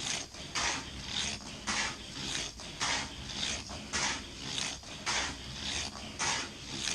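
Battery-powered Hot Wheels Sizzlers car, a reissue '70 Plymouth 'Cuda T/A, lapping a small plastic oval track: its tiny motor and wheels whir past in a steady rhythm of short whooshes, about two a second.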